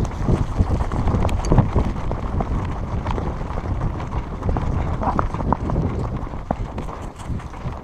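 A person running, footsteps thudding irregularly, with wind buffeting the microphone.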